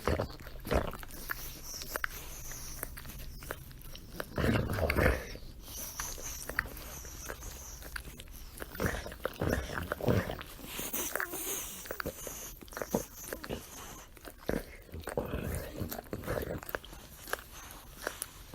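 A dog licking itself: irregular licks and mouth smacks in clusters with short pauses between, in several louder runs.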